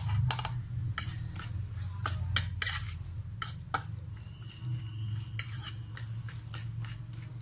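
A fork stirring shrimp and egg batter on a plate, clicking and scraping against the plate in quick, irregular strokes.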